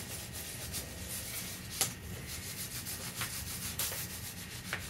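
Wax crayons scribbling rapidly on paper plates, a fast, continuous scratching of strokes on paper, with a couple of sharp clicks.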